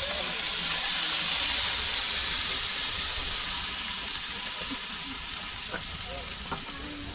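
Fat and juices sizzling on the hot grill of a Weber barbecue as a roast turkey is lifted off with tongs: a steady sizzle that slowly fades, with a few light clicks.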